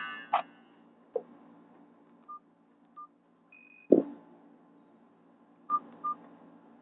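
Nokia 216 phone's keypad tones: short electronic beeps and a few key clicks, one louder knock about four seconds in. The last notes of a ringtone cut off in the first half-second.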